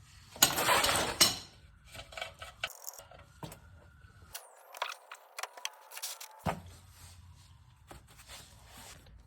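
Metal clinks and rattles of a socket wrench with a 17mm socket working on a car's oil drain plug. A loud, rasping burst comes about half a second in, followed by scattered sharp metallic clicks.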